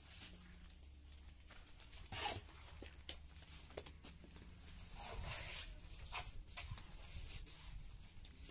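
Plastering trowel scraping and spreading cement plaster on an AAC block wall: a few short, faint scrapes at irregular intervals, the strongest about two seconds in.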